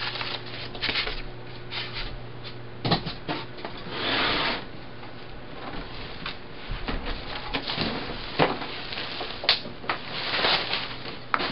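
Bubble wrap and cardboard packaging rustling and crinkling as they are pulled away, with scattered clicks and knocks from the plastic iMac G3 case being handled and shifted on the table, over a steady low hum.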